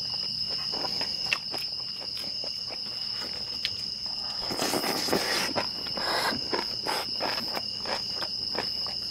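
Crickets chirping steadily in the background, with close-miked clicks and smacks of people chewing food. A brief louder hiss-like burst comes about halfway through.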